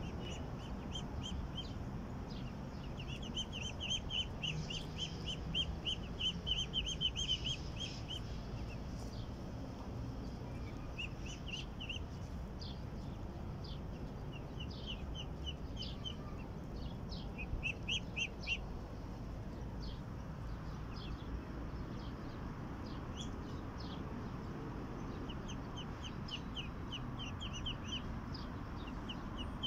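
Muscovy ducklings peeping in quick runs of short, high peeps that come and go several times, over a steady low background noise.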